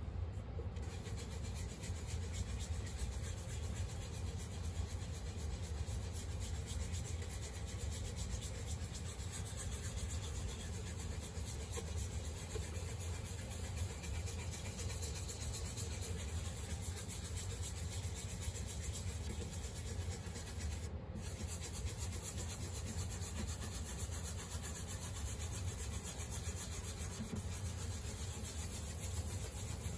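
A dye-soaked cloth pad rubbed over the wooden top of an acoustic guitar: a continuous scrubbing swish as brown dye is worked in for a sunburst, with a momentary break about two-thirds through.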